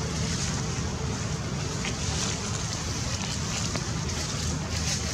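Steady wind noise buffeting the microphone, a low rushing with no clear events.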